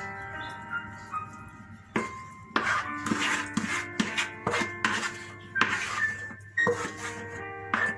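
Kitchen work noise: scattered knocks and clinks of utensils and dishes, several of them from about two seconds in, over soft background music with a chiming melody.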